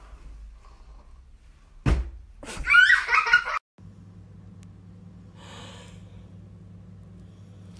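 A knock, then about a second of loud, high-pitched laughter that cuts off abruptly. A steady low electrical hum follows.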